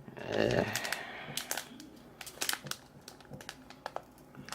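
Plastic wrapper of a trading-card booster pack crinkling as it is handled, with scattered sharp crackles.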